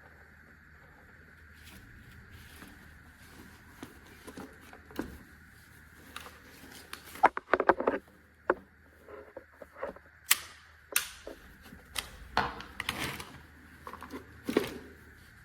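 A run of sharp clicks and knocks, a cluster about halfway through and more toward the end, as of a hard object being handled and set down, over a steady faint hiss.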